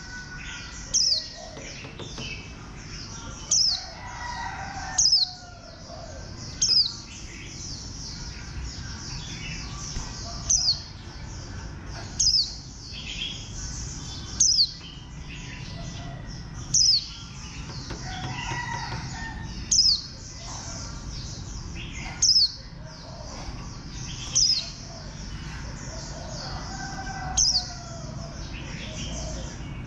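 White-eye (vành khuyên) singing a fast, high twittering song, broken about every two seconds by a loud, sharp note sweeping downward.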